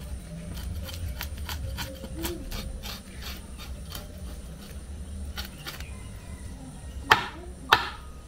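A kitchen knife scraping scales off a fresh fish on a wooden cutting board: a run of short rasping strokes, about three or four a second, with a brief pause. Near the end come two much louder knocks, about half a second apart.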